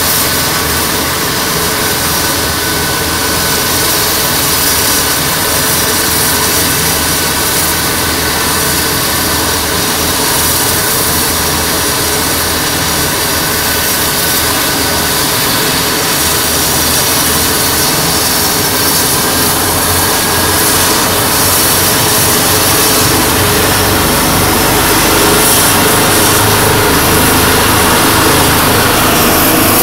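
Medical rescue helicopter's turbine engines and rotor running on the ground before lift-off: a steady turbine whine over a rushing noise, growing slightly louder near the end.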